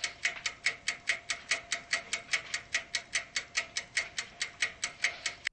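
Ticking sound effect, rapid and perfectly even at about five ticks a second, like a fast clock, keeping time with a number counting up.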